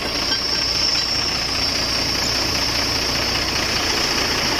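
Engine of a boom truck running steadily while it powers the truck-mounted crane, with a steady high-pitched hiss on top.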